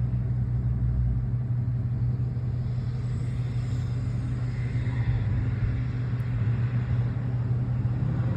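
Vehicle engine running with a steady low drone.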